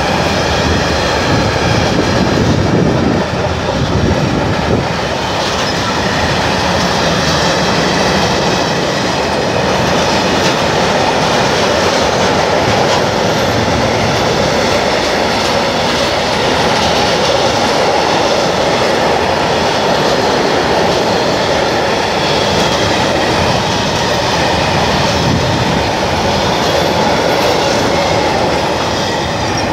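A freight train of tank wagons rolling past at close range: a steady, loud rumble of steel wheels on the rails, with wheel clatter and thin, high ringing tones from the wheels.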